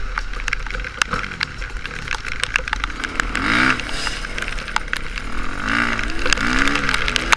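Suzuki RM-Z450 motocross bike's 450cc four-stroke single-cylinder engine revving up and dropping back twice as the rider rides the track, amid many sharp clicks and knocks.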